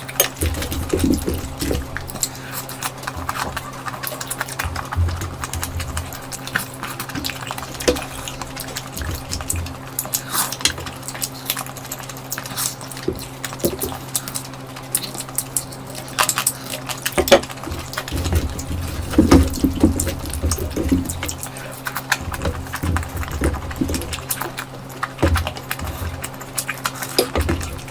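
Close-miked eating of curry: irregular wet chewing, lip smacks and squelching, with a steady low hum underneath.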